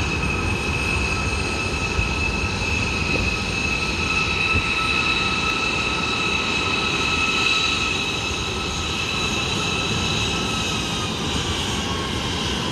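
Airbus A321neo's Pratt & Whitney PW1100G geared turbofans at takeoff thrust through the takeoff roll and climb-out: a steady rush with high whining tones. The whine drops slightly in pitch near the end as the jet climbs away.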